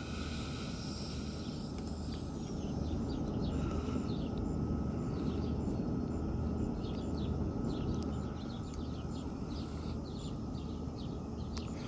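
Outdoor ambience: small birds chirping in quick, repeated short calls over a steady low background hum.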